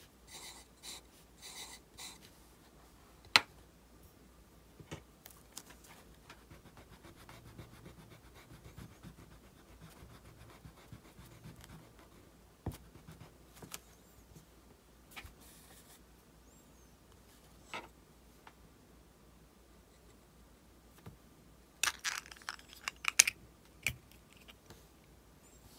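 Pencil scratching on sketchbook paper in short strokes, with a few scattered sharp clicks and long quiet stretches between. Near the end, a quick flurry of clicks and scrapes as a small 3D-printed plastic broom head and dustpan are handled against the pencil and paper.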